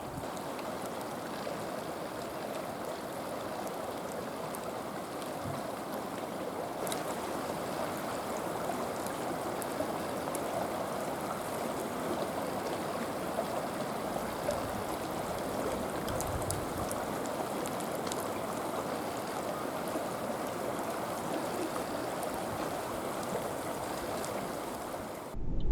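The Wolf River's current flowing: a steady rushing of moving water that cuts off suddenly near the end.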